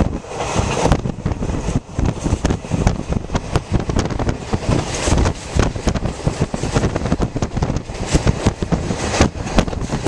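Passenger train coach running at speed: a steady rumble with irregular knocks and rattles from the running gear, mixed with wind buffeting the microphone.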